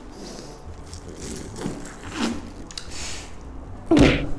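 A man gulping water from a plastic bottle, a series of short gulping and crinkling sounds, then one loud short sound near the end.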